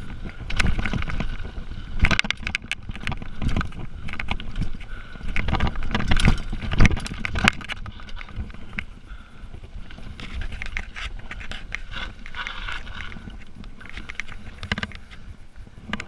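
Mountain bike descending a rough dirt singletrack at speed: a dense, irregular clatter of knocks and rattles from the bike jolting over bumps, over a low rumble of tyres on dirt. The clatter is busiest in the first half and eases after about eight seconds.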